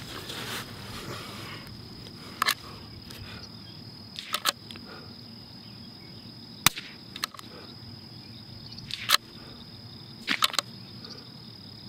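A CZ457 Pro Varmint .22 LR bolt-action rifle firing a five-shot group: about five sharp, short reports roughly two seconds apart, with smaller clicks between them, the loudest two near the middle. A steady high-pitched insect drone runs underneath.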